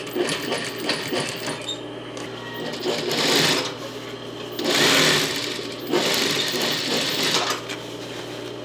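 Industrial Singer sewing machine stitching a waistband onto a skirt in three short runs, the loudest about five seconds in, with a steady hum and light clicks between runs.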